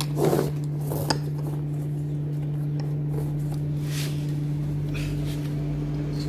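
Small hard objects clinking and tapping as tools and parts are handled on a workbench: a short cluster of clinks about a quarter second in, then single taps around one, four and five seconds. A steady low electrical hum runs underneath.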